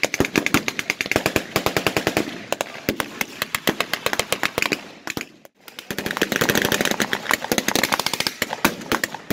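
Rapid gunfire from blank-firing WWII-era rifles and automatic weapons, many sharp shots a second overlapping in a near-continuous stream, dropping out briefly a little over halfway through before resuming.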